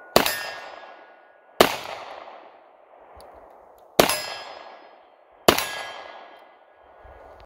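Taurus 905 snub-nosed 9mm revolver fired four times, slow aimed shots about one and a half to two and a half seconds apart. Each sharp report is followed by a long ringing tail that fades away before the next.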